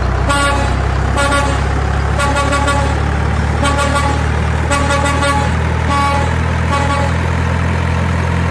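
Semi-truck pulling double trailers: its diesel engine runs with a steady low drone, over which the air horn gives a series of short toots, roughly one a second.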